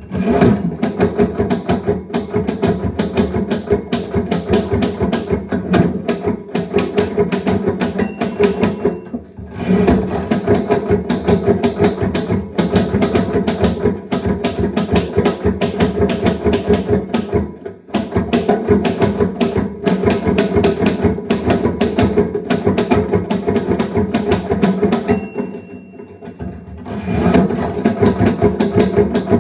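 Typewriter typing fast and steadily: a rapid run of key strikes broken by brief pauses about every eight or nine seconds, with a short bell ding just before two of the pauses, as at the end of a line before the carriage return.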